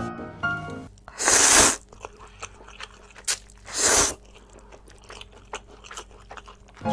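Close-miked slurping of spicy instant noodles: two loud slurps about three seconds apart, with wet chewing clicks between and after them.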